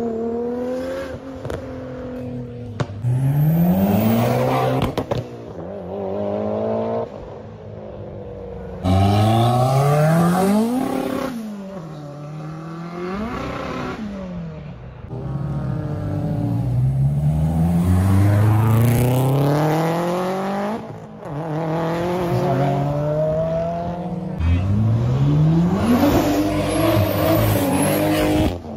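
Modified performance car engines accelerating hard, one clip after another. The pitch climbs through each gear and drops back at every shift.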